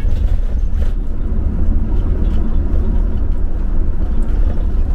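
Steady low rumble of a vehicle on the move: engine and road noise with no clear pitch.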